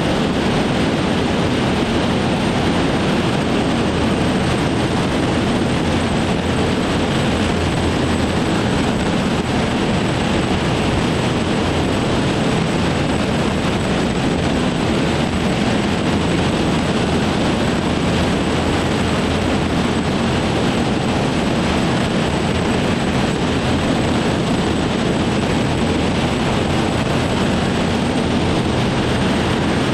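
Small turbojet engine running on a test stand: a steady rushing noise with a thin high whine that eases slightly lower in the first few seconds as the thrust is commanded down, then holds steady.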